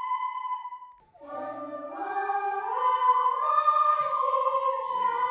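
A class of children playing wooden flutes holds one note that dies away about a second in. Then a group of voices comes in, several parts starting low and sliding upward in pitch together.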